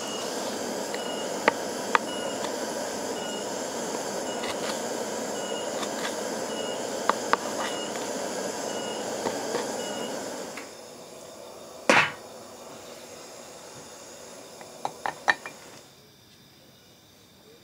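Knife blade striking a wooden cutting board while chopping onion and raw meat: scattered sharp taps, the loudest about twelve seconds in, with a quick cluster near the end. Under them a steady hiss with a faint high chirp repeating a little faster than once a second, which drops away partway through and again near the end.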